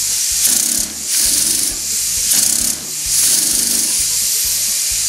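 Model twin-cylinder oscillating-valve steam engine running on compressed air: a fast rhythmic chuffing and hiss of exhausting air with light mechanical clatter. The level drops briefly twice, about a second in and just before three seconds, then picks up again.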